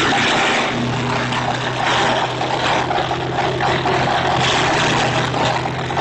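Small wheeled garden wood chipper running hard while conifer branches are fed in: a dense, rough crackle of wood being shredded over a steady engine hum that settles in about a second in.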